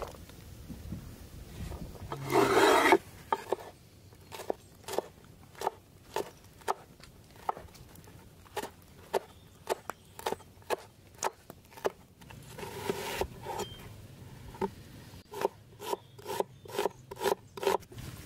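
Wide-bladed kitchen knife chopping vegetables on a wooden cutting board: steady knocks of the blade on the wood, about two a second, quickening to about three a second near the end. A loud rasping scrape comes about two seconds in, and a softer one about two-thirds of the way through.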